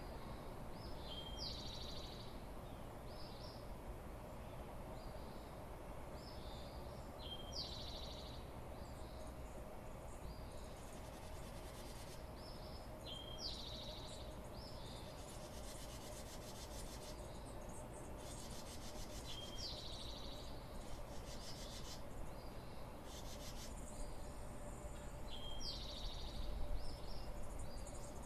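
A songbird in the dawn chorus repeating the same short, high song phrase about every six seconds, five times over. A rapid raspy trill comes and goes through the middle, over a faint steady hum and low rumble.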